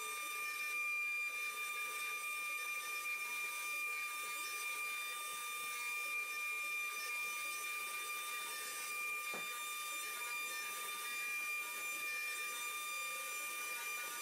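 CNC router spindle running at a steady, high-pitched whine as its bit carves a relief pattern into a wooden panel, with a hiss from the cutting.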